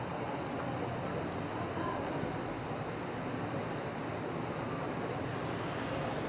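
Steady background ambience, an even noise with a low hum under it, and a few faint high bird chirps from about three seconds in.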